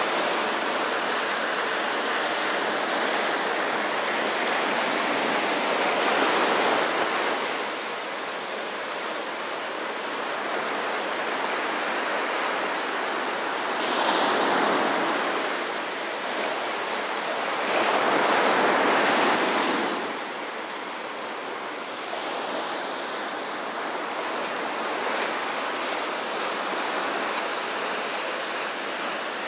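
Small ocean waves breaking and washing up a sandy beach: a steady hiss of surf that swells louder with each breaking wave, the loudest surge a little past halfway.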